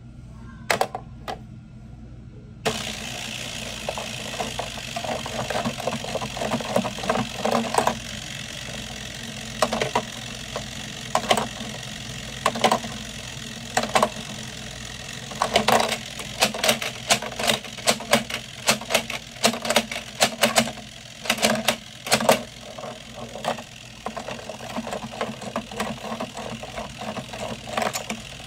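The Screwball Scramble toy's wind-up clockwork timer running with a steady rattling whirr, which starts suddenly about two and a half seconds in. Over it, a steel ball and the plastic levers and buttons of the obstacle course give many sharp clicks and knocks, coming thick and fast in the second half.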